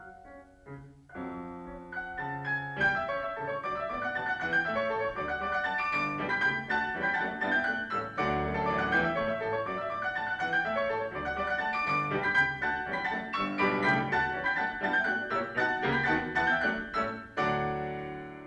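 Grand piano played four hands: a few quiet single notes at first, then dense chords and runs, the last notes dying away at the very end.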